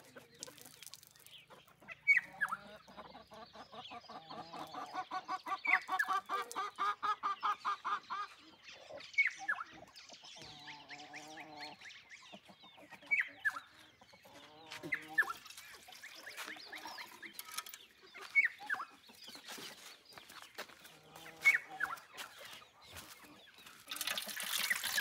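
Poultry calling: a long run of rapid clucks, then short high calls that fall in pitch every few seconds. In the last second, water starts pouring from a kettle into a metal dish.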